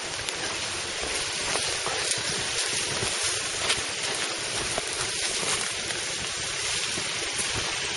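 Steady rushing hiss of a mountain stream, with a few faint footstep ticks on the trail.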